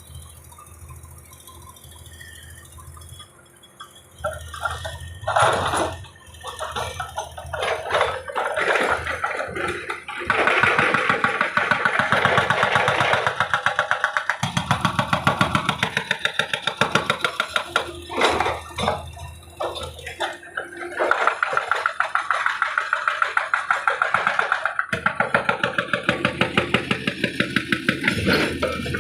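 Excavator at work: its diesel engine runs under load, with a fast, even pounding of about three to four strokes a second from about ten seconds in.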